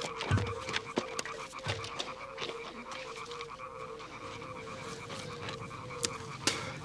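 Frogs croaking in a steady chorus, a pulsed call repeating over and over, with a few low thumps in the first two seconds.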